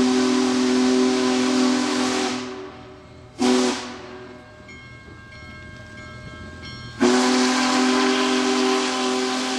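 Union Pacific 4014 Big Boy's steam whistle blowing: a long blast that ends about two seconds in, a short toot a second later, then another long blast from about seven seconds in.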